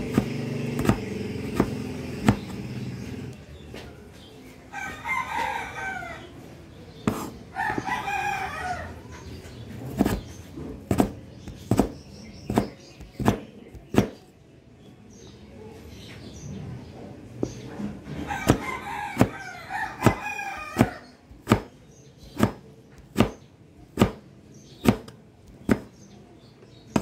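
A rooster crowing three times, twice close together and once more later. Sharp taps keep coming at a little over one a second through the second half and are the loudest sounds.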